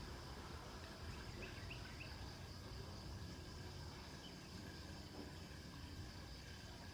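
Evening outdoor ambience: a steady high-pitched drone of insects such as crickets, three quick bird chirps about a second and a half in, and a low rumble of distant traffic underneath.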